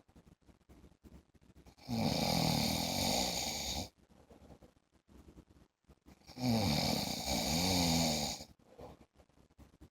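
A sleeping man snoring regularly: two snores of about two seconds each, the second starting some four and a half seconds after the first.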